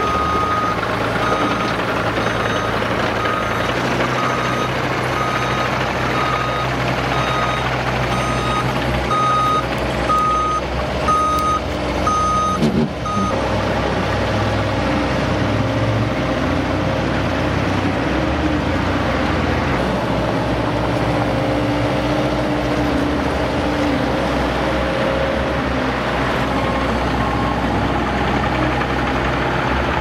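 Backup alarm of heavy construction machinery beeping about once a second, getting louder and then stopping about halfway through. Under it, the steady engine rumble of the machines carries on.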